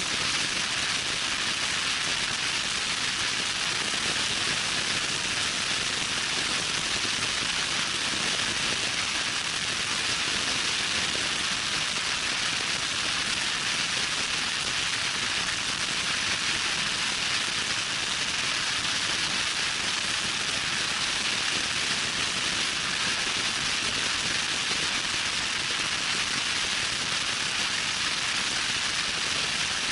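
Loud wind noise on the microphone of a vehicle driving fast on a dirt trail: a steady hiss that holds unchanged throughout, with no engine note standing out.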